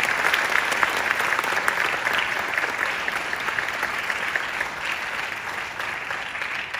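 Audience applauding, the clapping easing off slightly over the last few seconds.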